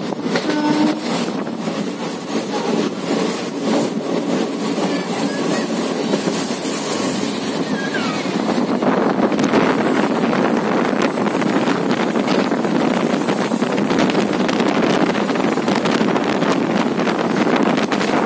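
Passenger train running at speed, heard from an open coach door: a steady rumble and clatter of wheels on the rails mixed with wind buffeting the microphone. It grows a little louder and rougher about nine seconds in.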